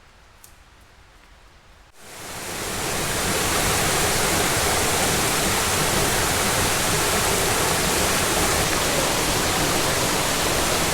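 Steady, loud rushing noise with no pitch. It starts abruptly about two seconds in and builds to full level within about a second; before it there is only faint background.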